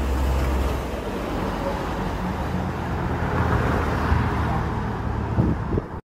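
Road traffic noise: cars running along a multi-lane city road, a steady rush of tyres and engines with a low rumble.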